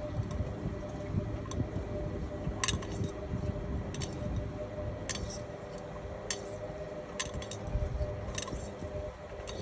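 Indesit MyTime EWE 71252 washing machine running, with a steady motor hum and rumble under a sharp clink roughly every second.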